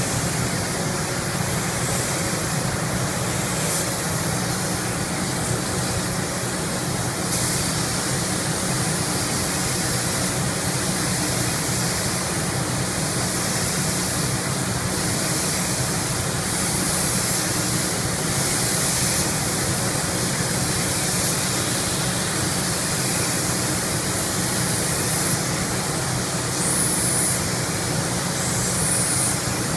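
Compressed-air paint spray gun hissing steadily as colour is sprayed, with a steady low hum underneath. The hiss brightens now and then.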